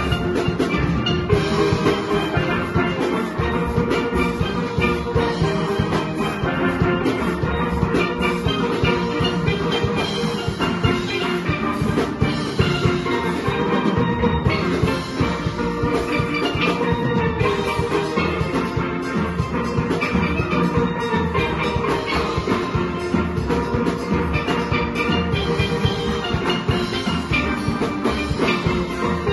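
Steel orchestra of many steel pans playing a soca tune together, with ringing pitched notes over a steady driving drum beat.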